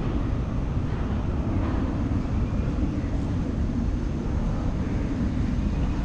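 Steady low rumble of distant city road traffic.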